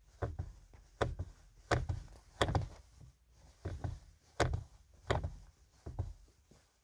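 A series of dull thunks and clicks from rubber-soled winter boots pressing and releasing a car's pedals, irregular, about one or two a second.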